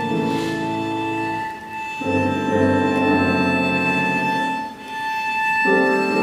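Cello and piano playing classical music together: the cello draws long bowed notes in phrases over the piano, with brief dips between phrases about one and a half seconds and about five seconds in.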